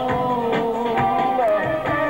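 Live Middle Eastern-style band music: a man singing into a microphone, holding long wavering notes, over keyboard and electric guitar with a steady beat about twice a second.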